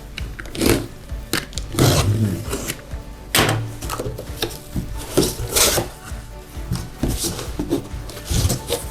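Pieces of split oak firewood being handled out of their box, knocking and clattering together in irregular knocks.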